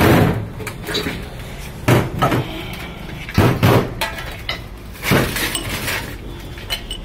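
Metal parts and tools clanking against a gearbox's alloy casing during assembly. There are several loud clanks a second or two apart, with lighter metallic clinks between them.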